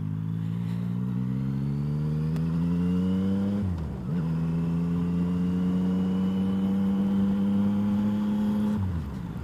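Motorcycle engine accelerating, its pitch climbing for nearly four seconds before a brief dip as it shifts up a gear. It then pulls again at a fairly steady pitch and drops once more with a second upshift near the end.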